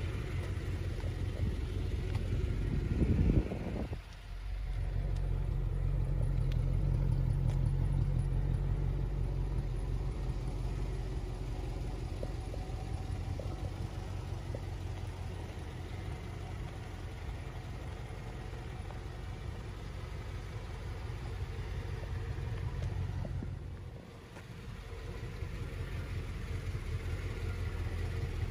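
1993 Chevrolet Corvette's 5.7-litre LT1 V8 idling steadily, a low even rumble. It swells louder about three seconds in and dips away briefly twice.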